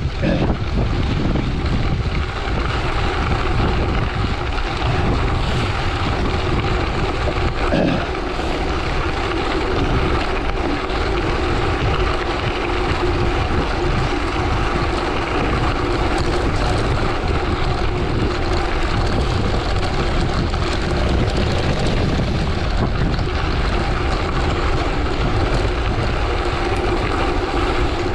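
Steady rush of wind over the microphone mixed with the hum of tyres rolling fast on gravel, from a gravel bike descending at speed.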